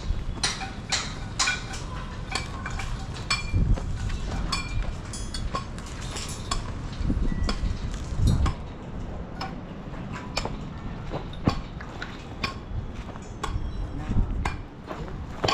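Repeated sharp metallic clinks and knocks, some with a brief ring, about two or three a second at first and sparser after the middle, over a steady low rumble.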